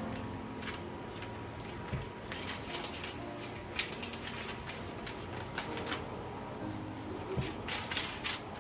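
Book pages being leafed through and turned by hand, paper rustling in several short, crisp bursts, the last cluster near the end as a page is lifted and turned over.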